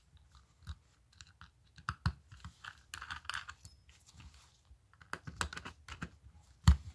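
Scattered light clicks and taps of a small Allen wrench and a two-piece aluminium case being handled and turned over, with one louder knock near the end.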